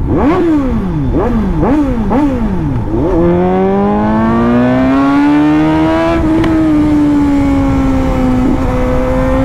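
Suzuki GSX-S750 inline-four with an Austin Racing titanium exhaust, revved in four quick, sharp blips with the clutch pulled in. The bike then pulls hard in gear, and the engine note climbs steadily for about three seconds before holding at a high, steady pitch.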